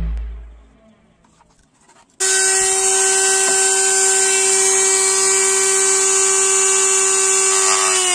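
Handheld mini rotary tool with a small cutting disc, switched on about two seconds in and running at a steady high whine with no load. Background music fades out just before it starts.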